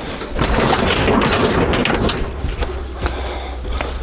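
Knocks and thuds of scrap being shifted and moved aside by hand, with a steady low rumble underneath.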